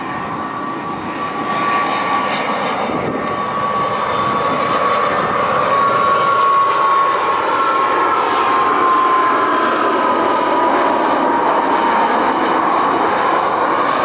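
Airbus A320-200 jet engines on final approach with the landing gear down: a steady jet roar with a whine that slowly falls in pitch, growing louder over the first two seconds and then holding.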